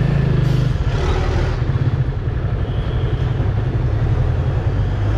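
Yamaha FZ25's single-cylinder engine idling steadily while the bike stands still.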